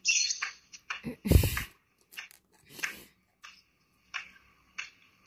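Handling noise from a phone being moved about: rustling and short knocks, with one loud thump about a second and a half in.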